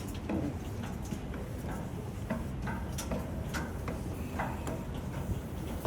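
Irregular light clicks and knocks over a steady low rumble.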